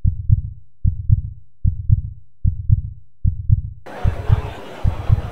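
Heartbeat sound effect: a steady double thump (lub-dub) repeating about every 0.8 seconds. About four seconds in, outdoor background noise comes in under it.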